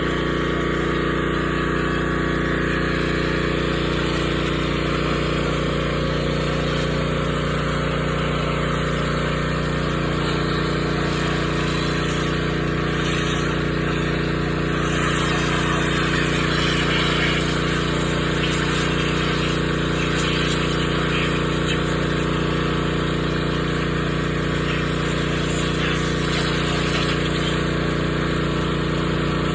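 Pressure washer running steadily, a constant machine drone under the hiss of the water spray.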